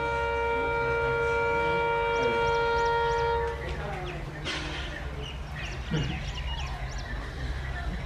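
Diesel locomotive's multi-tone horn sounding one long steady blast of about three and a half seconds, then cutting off, over the low rumble of the engines. Birds chirping after the horn stops.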